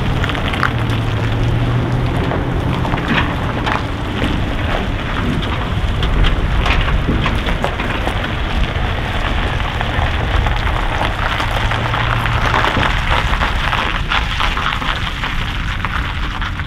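Diesel engine of a Peterbilt cabover semi truck running as the truck rolls past and away, a steady low rumble under heavy wind noise rushing and crackling on the microphone.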